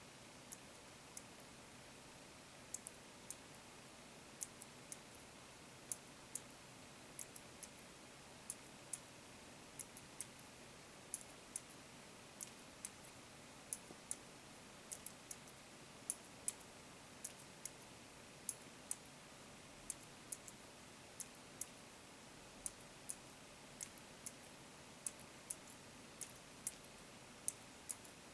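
Small bipolar stepper motor stepped by hand, one step at a time, as battery leads are tapped onto its coil contacts: sharp, light clicks at an irregular pace of about one or two a second, some coming in quick pairs.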